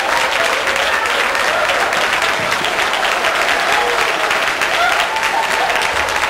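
Audience applauding steadily, with a few voices mixed in.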